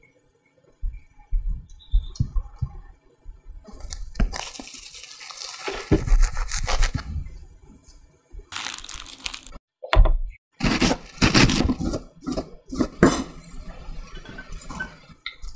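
Close-up food-prep sounds: cling film crinkling and toasted bread crunching as a sandwich is wrapped and cut. A run of knife strokes follows, with cabbage being chopped near the end.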